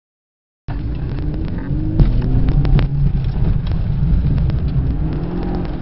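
Car engine heard from inside the cabin, cutting in about a second in and revving up and down as the car is driven hard through tight manoeuvres, with a heavy low rumble and a few sharp knocks.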